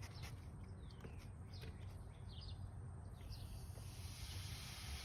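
A few short bird chirps, then about three seconds in a steady fizzing hiss starts suddenly and keeps going: soda foaming up after two Mentos are dropped in.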